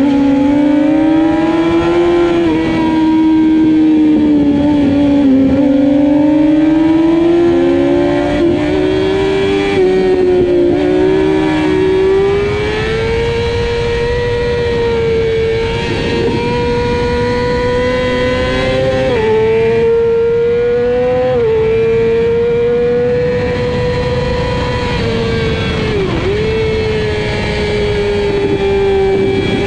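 Onboard sound of a racing sportbike's engine held at high revs, its pitch climbing and falling with throttle and gear changes, with a few sudden shifts in pitch. A steady wind rush runs underneath.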